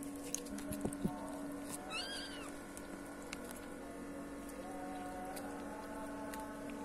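Kitten meowing: one short, high, arching meow about two seconds in and a fainter one later. A few light clicks come before it, over a steady low hum.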